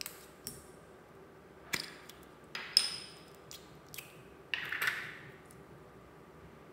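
Slime and putty pieces knocking against a glass bowl as they are handled and dropped in: a handful of sharp clicks and knocks, one near three seconds with a brief glassy ring, then a rougher handling noise from the slime near five seconds.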